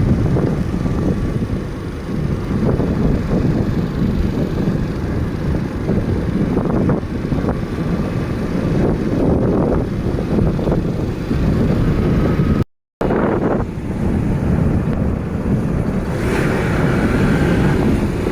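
A vehicle's engine and road noise, a steady low rumble with wind buffeting the microphone. The sound cuts out for a moment about two-thirds of the way through.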